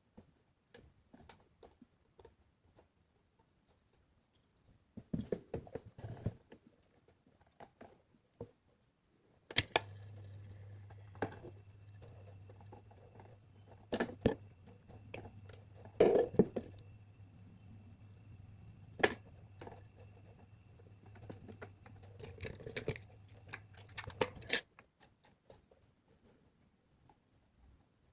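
Scattered small clicks, taps and snips of hands working on electronic parts and wires. About a third of the way in, a steady electrical hum with a faint high whine switches on; it runs for about fifteen seconds and then cuts off suddenly.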